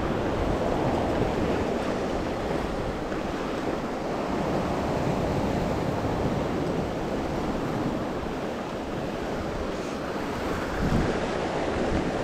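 Ocean surf breaking and washing over rocks below a sea cliff, a steady rushing noise, with wind buffeting the microphone.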